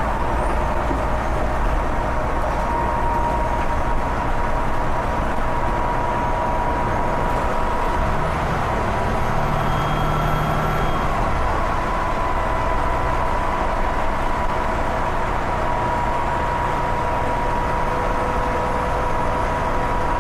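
Volvo B7TL double-decker bus's six-cylinder turbo-diesel engine running, with a steady high whistle from the turbocharger over the engine's low drone.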